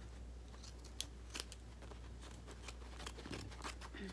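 Hand scissors snipping through striped fabric cut from old shorts: a run of short, crisp snips, the sharpest about a second in. A low steady hum runs underneath.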